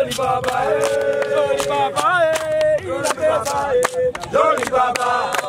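Group of young men singing a chant together in unison, with sharp hand claps throughout.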